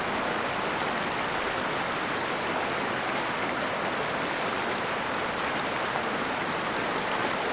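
Small mountain creek running over rocks and a little cascade: a steady, even rush of water.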